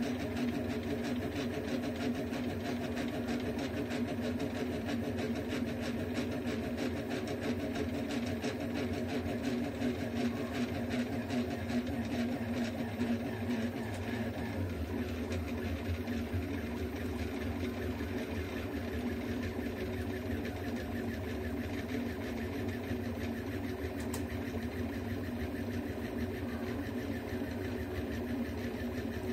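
Delta 3D printer running at the start of a print: its stepper motors whir and buzz as the print head moves over the bed, over a steady machine hum.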